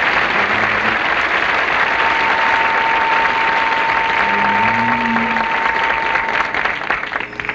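Studio audience applauding. A single steady high tone is held for about four seconds in the middle, and the applause dies away near the end.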